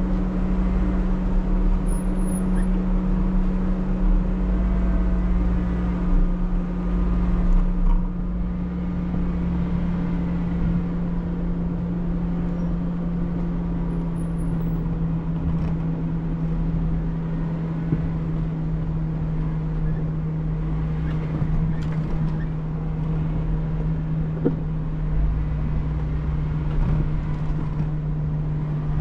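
Off-road vehicle's engine running at a steady drone, its pitch easing slightly lower, with a rough low rumble and a few brief knocks.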